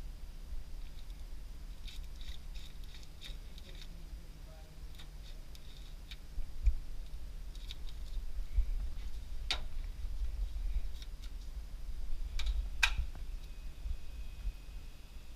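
Light clicks and rustling of snack packets being handled while a snack vending machine is stocked, with two sharper clicks, one a little past the middle and one near the end.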